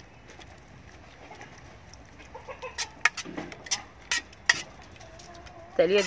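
Chickens clucking and pigeons cooing faintly, with a few sharp clinks of a spoon against a metal pot as a tomato-onion mixture is scraped out of it.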